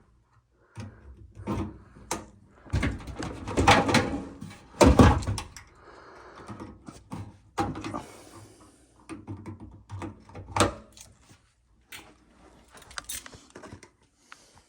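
Irregular knocks, thuds and rattles of objects being handled in a small room, the loudest thuds about four and five seconds in.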